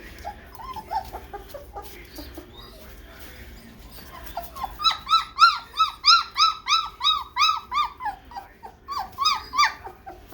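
Three-week-old white German shepherd puppy whining: a few soft whimpers at first, then from about halfway a fast run of loud, arched cries, about four a second, with a few more near the end.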